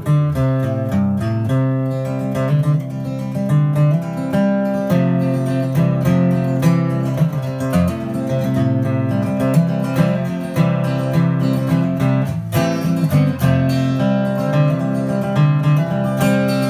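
Solo acoustic guitar in an instrumental passage: picked and strummed notes over a low, ringing bass.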